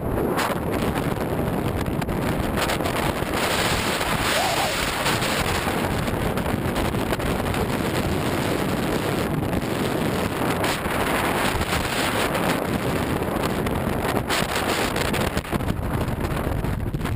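Wind rushing and buffeting on the microphone of a camera mounted outside a diesel Jeep Wrangler JK driving fast along a dirt track, with the vehicle's engine and tyre noise underneath and a few brief knocks from bumps.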